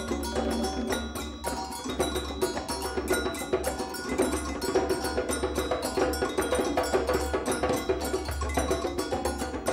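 Percussion ensemble playing a Brazilian carnival rhythm: several sets of bells, including agogô double bells, in interlocking patterns over hand drums, in a fast, steady groove of dense strokes.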